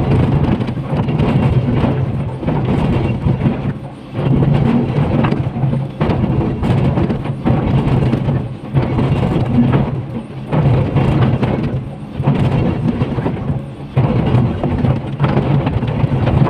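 Komatsu PC500LC hydraulic excavator's diesel engine running under load as its bucket rips into a rock face, with crunching and clattering of breaking rock. The noise swells and eases with each pull of the bucket.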